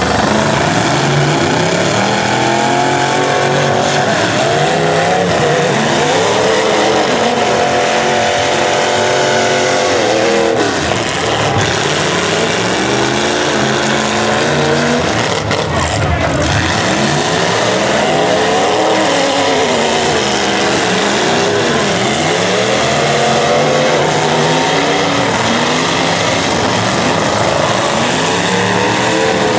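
Several demolition derby cars' engines revving up and falling back over and over as the cars ram and manoeuvre, their pitches rising and falling across one another.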